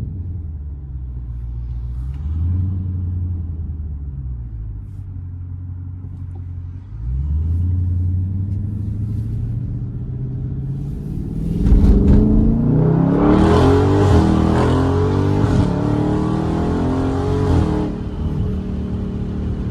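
A Dodge Charger Scat Pack's 392 Hemi V8 with a JLT cold-air intake, cruising with the revs rising and falling. About twelve seconds in it opens up into hard acceleration, loud intake and exhaust noise climbing through the revs for about six seconds, then backs off.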